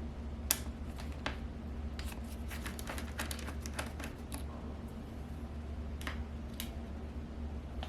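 Small sharp clicks and ticks of a Phillips screwdriver backing out the small screws that hold a laptop's display panel, with a quick run of ticks in the middle. A steady low hum runs underneath.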